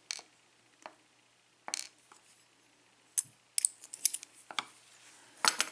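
Small metal lock-cylinder pins (spool driver pins and key pins) clicking and clinking as they are handled and set down, a series of light, sharp ticks with a brief cluster in the second half.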